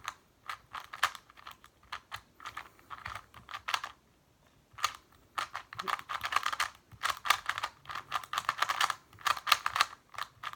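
Rapid plastic clicking and clacking of a YuXin Little Magic non-magnetic 2x2 speed cube being turned during a timed solve. The turns come in quick runs with a short pause about four seconds in.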